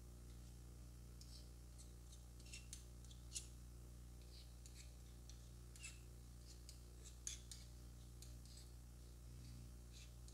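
Metal spoon scraping and clicking against a stone bowl as a paste is mixed: faint, irregular scrapes and ticks, two of them sharper, over a steady low hum.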